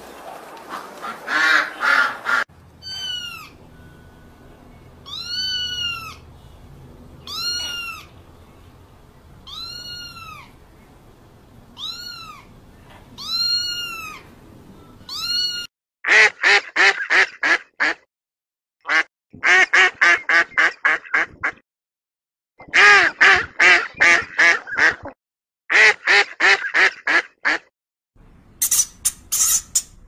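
Single clear calls from a water bird, each rising and falling, about one every two seconds. About halfway through, a female mallard quacking in loud runs of several quick quacks with short pauses between. Near the end, high-pitched squeaks from a guinea pig.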